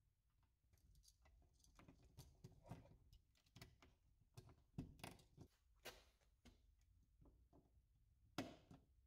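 Near silence with faint, irregular taps and knocks scattered throughout, one a little stronger near the end.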